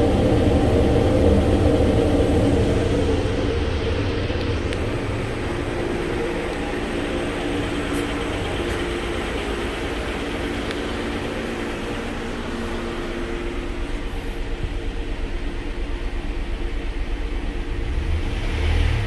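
2016 Kia Sedona's 3.3-litre V6 idling steadily, at first close to the tailpipe, then quieter once heard from the open driver's door.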